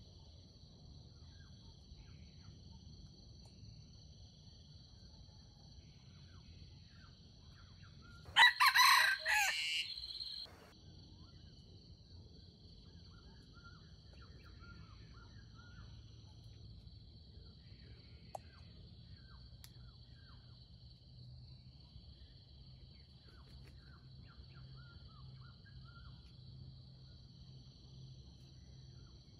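Red junglefowl rooster crowing once, a short crow of about two seconds about eight seconds in, over a steady high-pitched insect drone.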